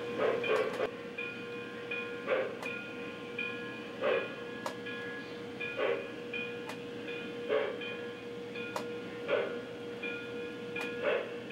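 O-scale Lionel model of a Pennsylvania Railroad K4s steam locomotive running slowly. A steady tone runs under soft chuffs about every one and a half to two seconds, with light clicks in between.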